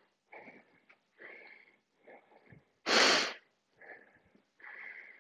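A man breathing hard while recovering from a set of weighted squats: a run of short breaths about once a second, with one loud, forceful exhale about three seconds in.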